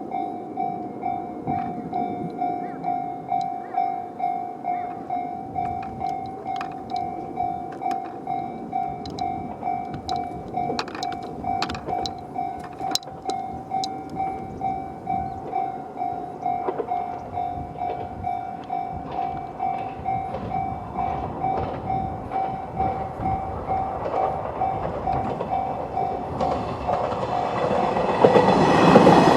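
Japanese level-crossing electronic warning bell in the JR standard tone, ringing in an even pulse about one and a half strikes a second. Over the last several seconds a Moka 14 diesel railcar approaches and grows loud with wheel clatter and a high squeal, and the bell cuts out just before the train reaches the crossing.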